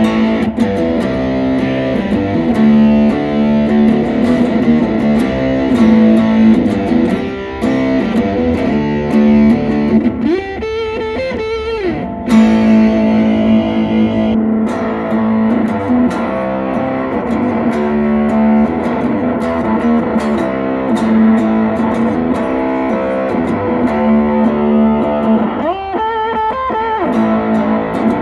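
Electric guitar, a Yamaha Revstar P90, played through a Behringer SF300 fuzz pedal into a Gibson Falcon 5 amp: thick, heavily fuzzed sustained chords and riffs. Twice, about ten seconds in and again near the end, the playing drops to a wavering bent note.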